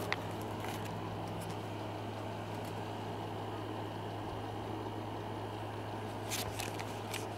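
A steady low machine hum with a faint hiss underneath. A few light crinkles and taps from handling a plastic sheet of cross stickers come right at the start and again about six seconds in.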